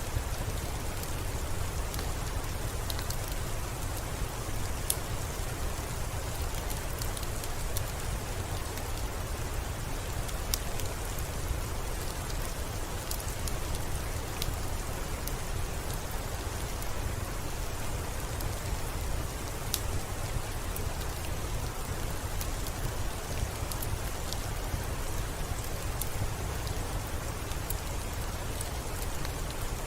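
Steady rain on a window: an even hiss with scattered sharp ticks.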